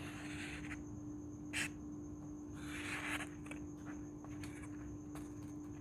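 A freshly sharpened knife edge drawn twice in a sharpness test from the tip, two soft hissing slicing strokes with a small click between them, over a faint steady hum.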